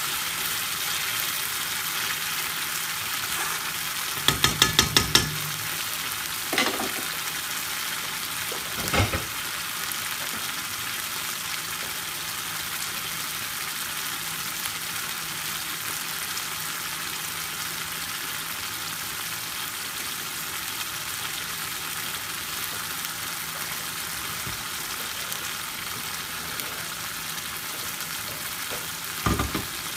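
Curry sauce sizzling steadily in a karahi on the hob, with a metal spoon knocking against the pan: a quick run of about six taps about four seconds in, then single knocks a little later and a couple more near the end.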